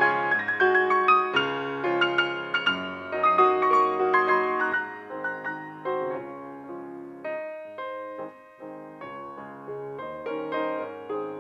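Piano music, a steady flow of notes that grows softer and sparser about halfway through and fuller again near the end.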